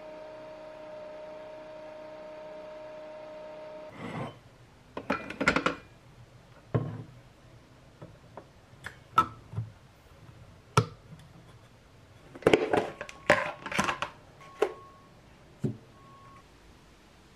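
A single-serve coffee machine running with a steady hum as it brews into a tumbler, stopping about four seconds in. Then a string of light clicks, clinks and knocks as a tumbler lid, a small glass jug, a plastic food container and a plate are handled.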